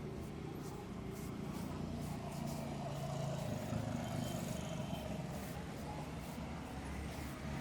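Street traffic: vehicle engines running, a steady low rumble that swells slightly in the middle.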